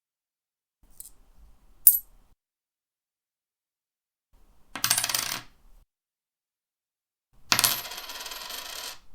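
Separate coin sound effects with silence between them: a faint tick and a sharp single clink near the start, a short jingle of metal coins about five seconds in, and a longer rattle of coins lasting about a second and a half near the end.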